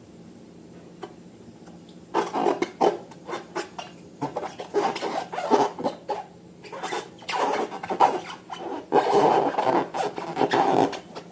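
Slime being squished and stirred by hand, with sticky, crackly squelching and rubbing in irregular bursts that start about two seconds in.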